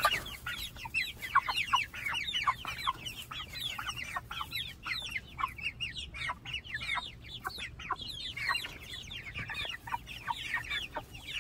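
A flock of white meat chickens calling nonstop, with many short, falling peeps and clucks overlapping several times a second as they crowd round for feed.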